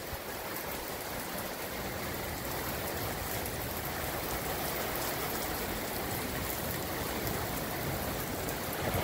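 Heavy rain pouring down steadily, an even hiss of water falling on the street and parked cars.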